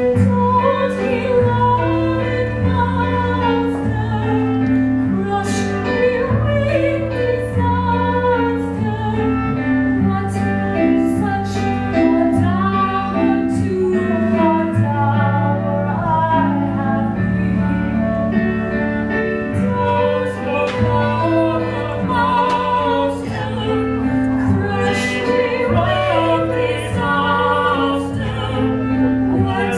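Operetta singing with instrumental accompaniment: a vibrato voice over held chords and a bass line that steps from note to note, without a break.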